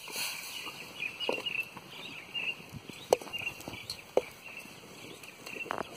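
Birds chirping again and again in short high notes. Now and then there is a sharp click or tap, like a footstep on dry ground.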